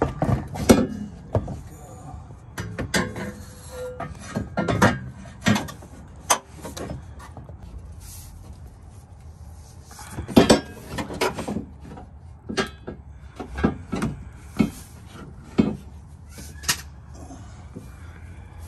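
A steel Draw-Tite tow hitch knocking and clinking against the car's underbody as it is handled and worked into place, with irregular metal knocks, a few of them sharp and loud.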